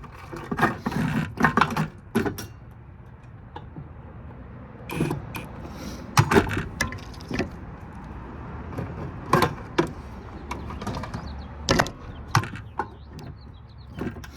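Irregular clatter of metal parts and circuit boards being handled and pulled from a large power supply during a teardown: scattered sharp clicks and knocks, a cluster near the start and single louder knocks every second or two after that.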